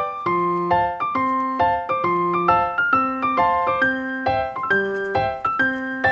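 Piano music: a steady run of notes over a moving bass line, a new note about every quarter to half second.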